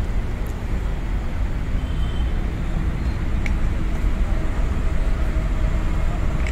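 Steady low rumbling outdoor background noise, with a few faint sharp taps.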